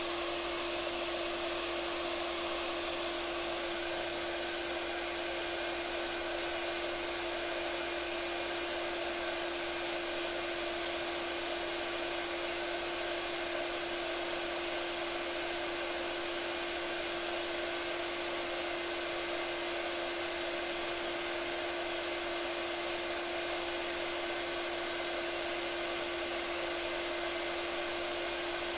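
Handheld iTeraCare terahertz blower running steadily on its first, warm setting: a hair-dryer-like rush of air from its small fan with a constant humming tone on top.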